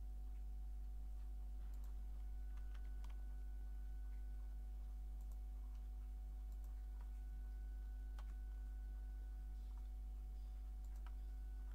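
Steady low electrical hum with a handful of faint, scattered clicks, like those of computer keys or a mouse.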